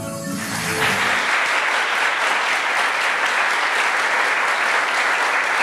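Audience applauding at the end of a sung ranchera, with the song's last held notes dying away in the first second.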